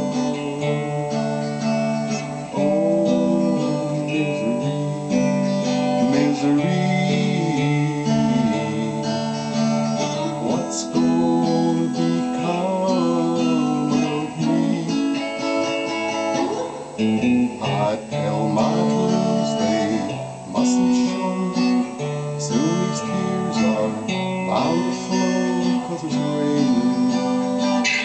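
A man singing a slow song while strumming chords on a solid-body electric guitar.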